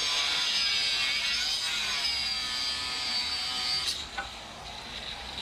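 A power tool on a building site whines steadily and high, wavering slightly in pitch, then cuts off abruptly about four seconds in. A fainter steady high hum with a few light ticks follows.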